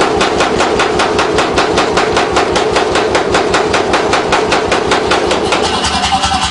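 Power hammer striking red-hot steel on its die in rapid, evenly spaced blows over the running machine's hum, flattening the end of the bar; the blows let up near the end.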